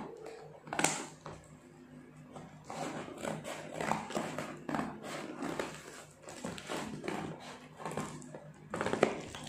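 Scissors cutting through the packing tape and cardboard of a shipping box, with irregular scraping, snipping and crinkling. There are sharper snaps about a second in and near the end.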